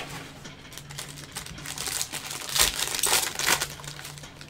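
Foil trading-card pack being crinkled and torn open, the crackling loudest about halfway through.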